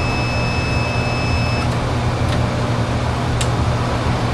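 Infrared BGA rework station's cooling fan running with a steady whir and hum, cooling the logic board after the reflow. A steady high tone cuts off about a second and a half in, followed by a few light clicks.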